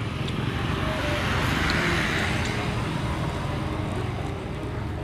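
Road traffic: a vehicle passing, a rush of noise that swells about two seconds in and fades, over a steady low rumble.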